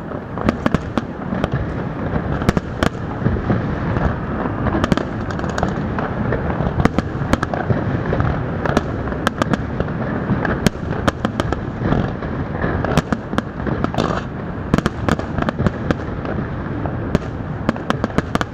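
Large fireworks display: shells bursting in rapid, overlapping bangs over a continuous rumble, several bangs a second.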